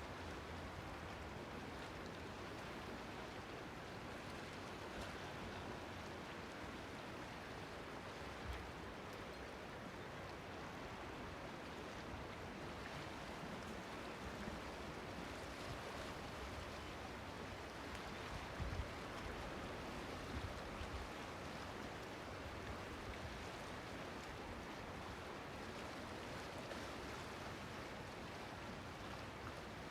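Steady wash of sea water in a small harbour: waves lapping and surging, an even noise with no pauses. A few short, soft low thumps stand out, one about eight seconds in and a small cluster roughly two-thirds of the way through.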